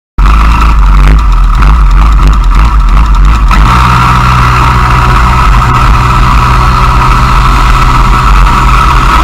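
IAME X30 125cc two-stroke kart engine running loud and steady at low revs, about 3,700–3,800 rpm, as the kart rolls slowly off, heard from a camera mounted on the kart; the note settles about three and a half seconds in.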